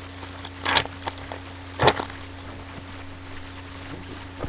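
Trading cards being handled: two short rustling swishes about a second apart, with a few faint ticks, over a steady low hum.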